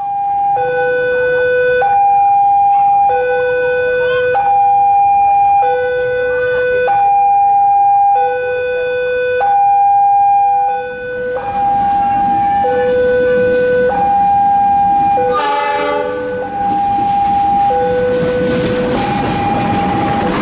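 Two-tone electronic railway level-crossing warning alarm, alternating steadily between a high and a low tone about every second. Near the end the noise of an approaching train rises under it.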